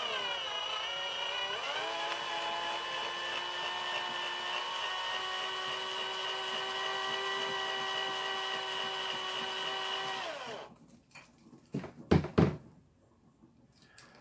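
Electric drill spinning a bit into the head of a Hot Wheels car's base rivet. Its whine drops in pitch as the bit bites, then holds steady for about ten seconds before the drill stops. A few sharp knocks follow near the end.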